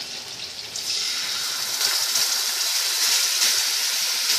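Masala frying in hot oil in a kadai sizzles with a steady hiss that gets louder about a second in, as beaten curd is poured into the hot pan.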